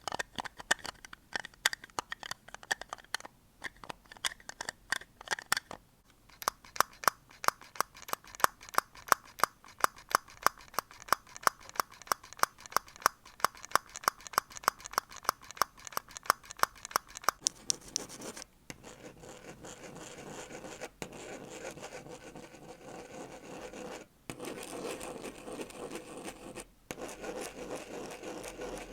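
Close-miked ASMR triggers. First a fast, even run of sharp clicks or snips, about four a second. Just after halfway this gives way to steady scratching and rubbing on a surface, broken by three brief pauses.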